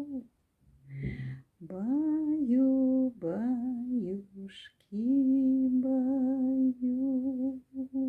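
A woman singing a slow Russian lullaby tune, low and close to humming, in long held notes grouped into short phrases with brief pauses between them.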